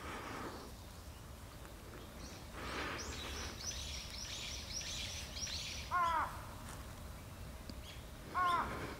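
A crow cawing twice, two short calls about two and a half seconds apart, over a quick run of high small-bird chirps.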